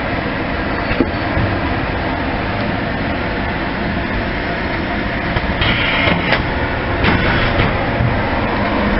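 FP6000CS automatic shrink-wrapping machine running: steady conveyor and motor noise, with a sharp click about a second in and two short hisses around six and seven seconds in.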